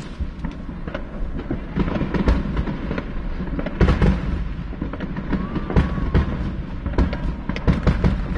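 Aerial fireworks going off in a continuous barrage of sharp bangs and crackles. The loudest booms fall about two, four and six seconds in.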